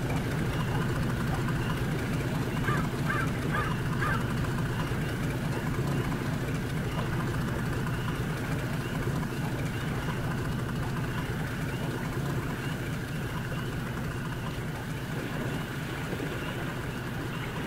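Steady low motor drone, with a few short bird calls about three seconds in.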